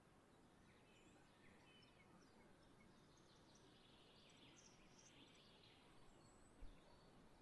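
Near silence with faint, scattered chirps of small songbirds, mostly in the middle stretch, and one brief low thump near the end.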